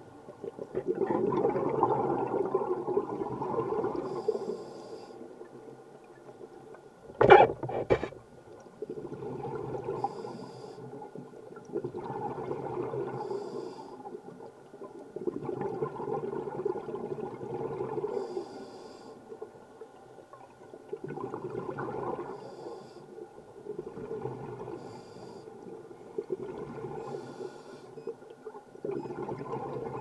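Scuba diver breathing through a regulator, heard underwater: a short hissing inhale, then a longer rumble of exhaled bubbles, repeating every three seconds or so. A sharp double knock about seven seconds in is the loudest sound.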